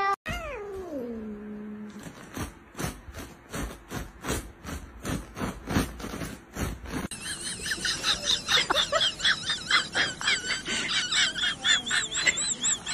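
A cat's call falling steeply in pitch, then a run of short sharp sounds at an even pace, then many quick, high squealing cries in a row.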